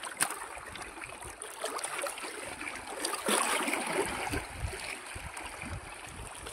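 Steady rushing outdoor noise with scattered small clicks and knocks as a fish is handled and unhooked by hand. Wind starts buffeting the microphone about four seconds in.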